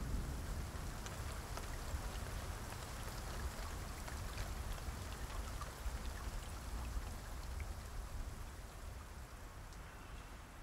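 Steady rain falling, with scattered drop ticks over a low rumble; it fades gradually toward the end.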